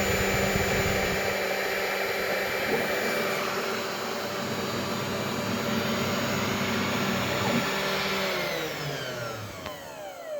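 CNC router spindle running with a steady whine, then switched off and spinning down with a falling pitch in the last two seconds.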